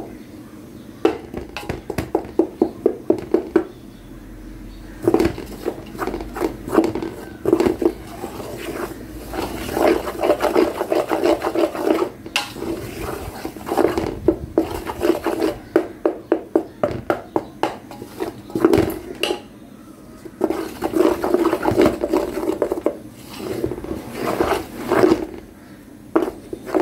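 A spatula scraping and stirring coarse roasted whole wheat flour around a stainless steel bowl, in quick runs of rhythmic strokes broken by short pauses.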